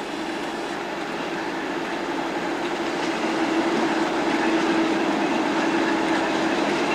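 Class 37/9 diesel-electric locomotive with a Mirrlees engine approaching, its engine drone holding one steady note and growing louder as it nears.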